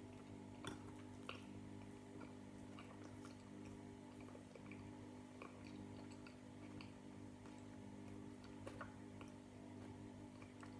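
Near silence: room tone with a steady low hum and faint, scattered small clicks.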